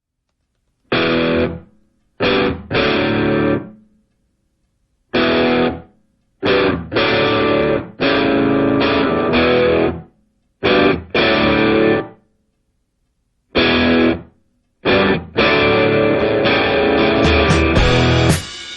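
Music: electric guitar played in short loud phrases broken by brief full silences, with sharp high ticks joining near the end.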